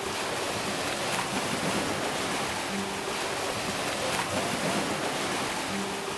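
Ocean surf washing onto a beach, a steady rushing wash of breaking waves, with faint soft music notes sounding every three seconds or so.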